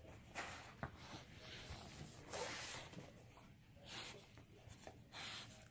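A dog snuffling and mouthing a toy: a handful of short, faint breathy snorts and rustles at irregular intervals.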